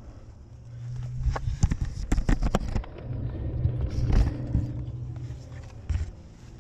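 Knocks, clicks and scrapes of a rock climber moving and handling gear, over a low rumble on the microphone. The densest run of clicks comes about one and a half to two and a half seconds in, with single knocks again near four and six seconds.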